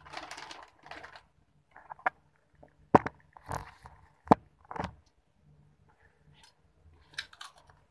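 Handling noises: a short rustle at the start, then a few sharp clacks or knocks, the loudest about three seconds and about four and a half seconds in.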